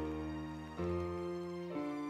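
Slow, sad background music: held chords that change about once a second.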